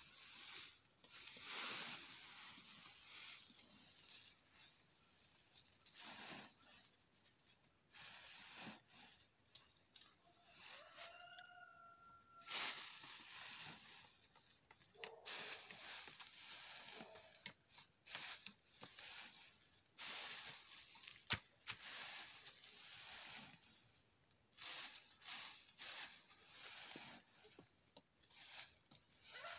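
A rake scraping and rustling through dry oak leaves in repeated, irregular strokes as the leaves are gathered. A chicken calls once about eleven seconds in.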